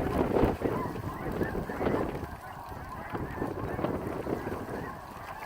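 A flock of snow geese calling, a dense overlapping chatter of many high honks, busiest in the first two seconds and thinning after, with wind buffeting the microphone.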